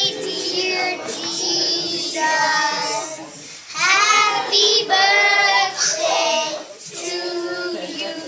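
A group of young children singing a song together in held, sung phrases, with a short break a little over three seconds in.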